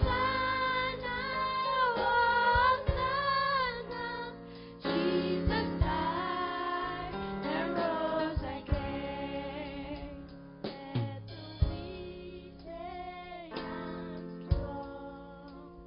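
A group of girls singing a gospel song together into microphones, backed by a live band of drum kit, bass guitar and keyboard, with drum hits every few seconds.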